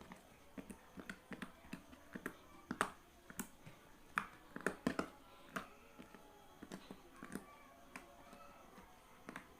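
Homemade slime being squeezed and kneaded by hand, giving irregular sharp clicks and pops, several a second.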